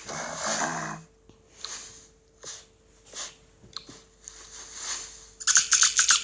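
Cartoon character vocal effects: a low grunt, then a few short breathy puffs, and near the end a loud, rapid run of jerky squawks, as of a cartoon chicken being shaken.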